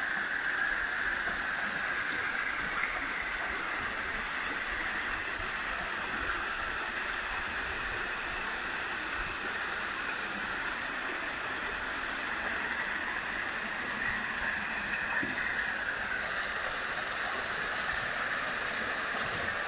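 Small garden waterfall splashing steadily down a stone cascade into a pool.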